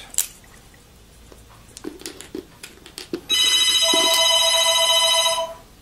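A few small plastic clicks and taps as keycaps are worked off a membrane keyboard with a key puller. About three seconds in, a loud electronic tone made of several steady pitches starts and sounds for about two seconds. A lower pitch joins it partway through, and then it stops.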